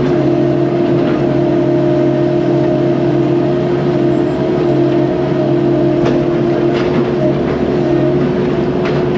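Cat 308 mini excavator's diesel engine running at a steady, unchanging pitch under load as the machine drags a log pinned against its blade, with a few faint clicks.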